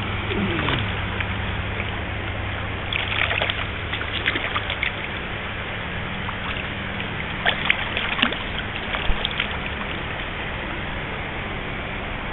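Splashing from a hooked trout thrashing at the water's surface as it is brought in, in two bouts, a few seconds in and again past the middle, over steady river noise.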